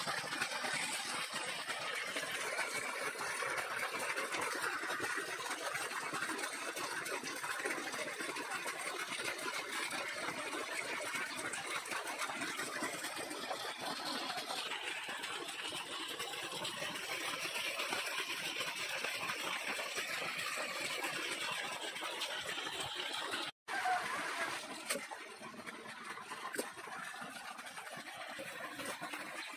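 Steady running water and splashing as goat intestines and tripe are rinsed by hand in aluminium pots. The sound breaks off for an instant about three-quarters of the way through, then continues a little quieter.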